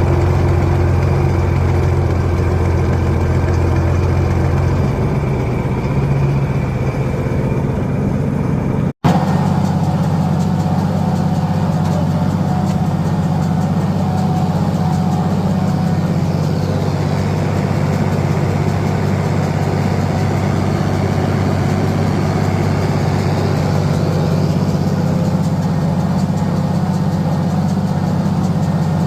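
John Deere 4020 tractor engine running steadily under load while baling hay, with a sudden break about nine seconds in before the same steady running resumes.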